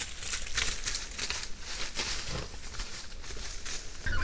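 Dry fallen leaves rustling and crackling in short, irregular bursts, as an animal moves through the leaf litter.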